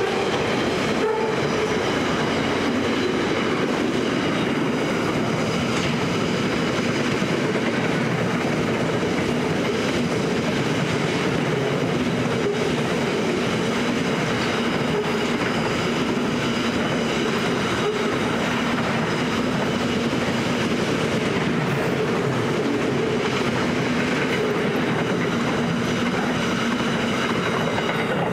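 Freight wagons, louvred boxcars and then container flat wagons, rolling past on steel rails: a steady loud rumble of wheels on track, with steady whining tones over it. The noise holds level until the last wagon clears at the very end.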